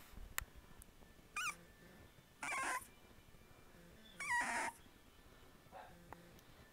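Young puppies, about four and a half weeks old, give three short high whining cries. The pitch wavers and falls, and the last cry is the loudest.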